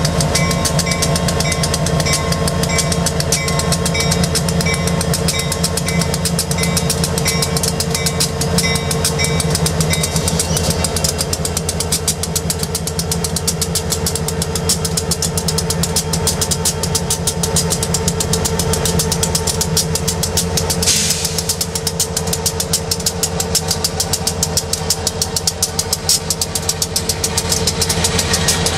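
The EMD 16-710 two-stroke V16 diesels of two SD70M locomotives running with a rapid, even beat as the units roll slowly past close by. A bell dings about once a second for the first ten seconds, and a short hiss comes about twenty seconds in.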